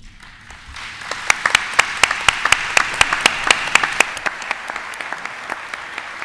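Audience applauding: the clapping builds up about half a second in, sharp individual claps stand out over it for a few seconds, then it thins and tapers off.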